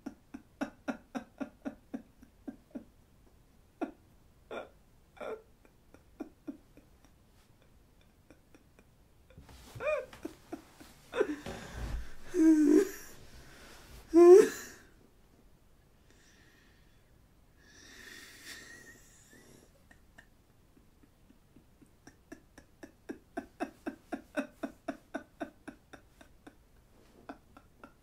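A man's breathy, wheezing laughter in quick rhythmic pulses, in two runs near the start and toward the end, with a few louder vocal bursts in the middle.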